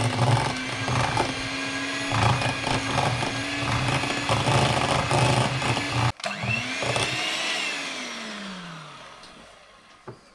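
Hand blender running in a bowl of white twaróg cheese and sour cream, blending it smooth. It cuts out about six seconds in, is switched on again briefly, then spins down with a falling pitch.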